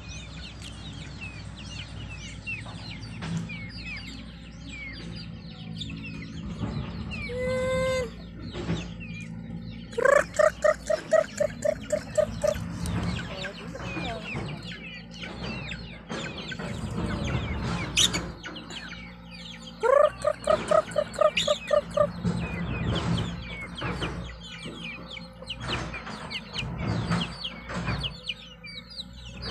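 A flock of free-range chickens: a rooster crows twice, long and loud with a wavering pulse, about ten seconds apart, over clucking and many small high peeps from chicks.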